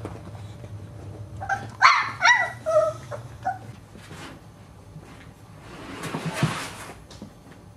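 One-month-old boxer puppies yipping and whining, four or five short, high, falling yelps in quick succession about two seconds in. Near the end comes a scraping rustle with a few light knocks as a puppy scrabbles on a plastic slide.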